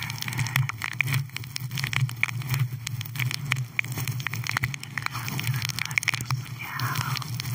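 Fingers rubbing and squeezing a fluffy faux-fur microphone windscreen right on the microphone: a dense crackling rustle of many small clicks, over a low steady hum.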